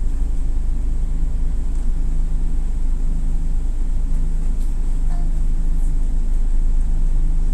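Toyota Coaster LPG minibus engine idling, a steady low hum heard from inside the passenger cabin.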